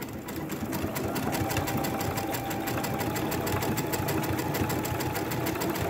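Brother Innovis 6700D Quattro 2 computerized sewing machine sewing a decorative stitch: a steady motor tone under a rapid, even clatter of the needle mechanism.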